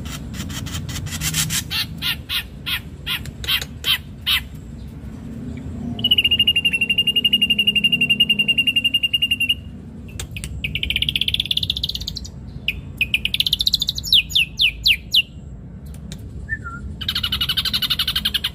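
Ashy drongo singing a varied song: first a quick series of sharp chips, then a long buzzing rattle held on one pitch for about three and a half seconds, then rapid trills and more chips, and a harsh buzz near the end.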